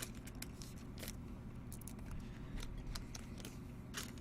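Faint clicks and soft rustles of trading cards being handled and flipped through, one card after another.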